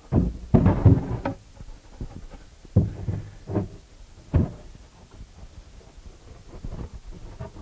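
Wooden shelf being handled and set into a wooden cabinet carcass: a cluster of thumps and knocks in the first second or so, then three sharp wooden knocks about a second apart, with a few lighter taps near the end.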